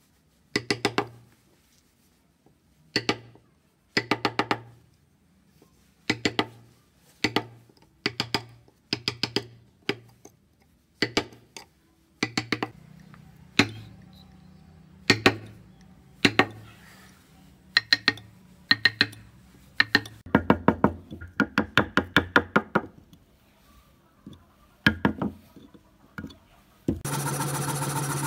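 A wood-carving chisel tapped into a wooden motorcycle model: short runs of quick, sharp knocks every second or two, with pauses between them. Near the end the sound cuts to a scroll saw running steadily.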